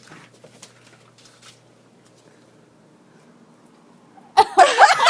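A few faint clicks, then a hush, and near the end a person bursts out laughing loudly.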